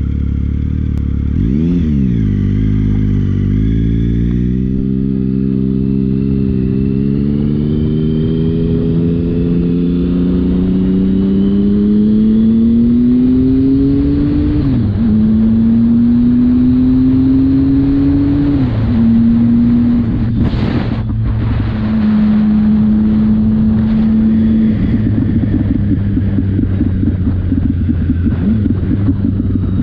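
Triumph Speed Triple's 1050 cc three-cylinder engine through an aftermarket exhaust, under way. A quick rev near two seconds in, then a long climb in pitch through the revs, dropping at upshifts about fifteen and nineteen seconds in. It holds steady for a few seconds, then eases off near the end.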